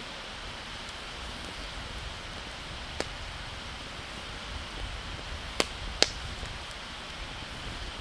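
Wood fire burning in a metal fire pit, popping sharply three times (about three seconds in, then twice close together near six seconds) over a steady hiss.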